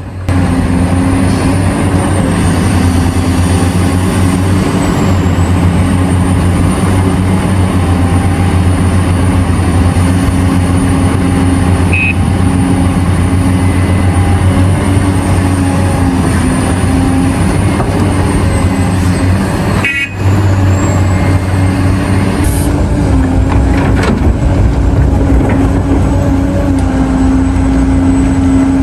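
Heavy diesel earthmoving machinery running with a steady, deep engine hum. About two-thirds of the way through there is a brief break in the sound, where it is cut.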